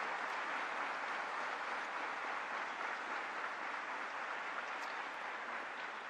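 Large theatre audience applauding, a dense, steady clapping that eases off slightly toward the end.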